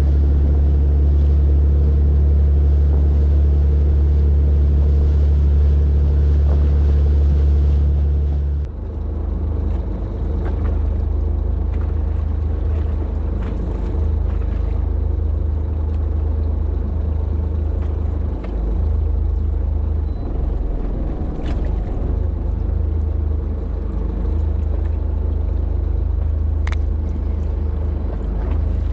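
Fishing boat's engine running with a steady low hum; about a third of the way in it changes to a rougher, noisier rumble, with a few faint ticks over it.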